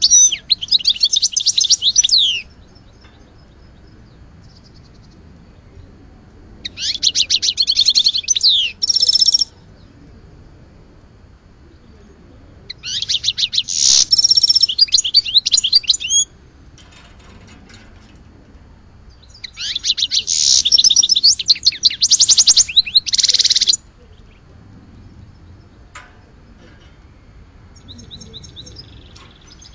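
A songbird singing in four bursts of fast, twittering trills, each about two to four seconds long, with pauses of a few seconds between them. A few faint calls come near the end.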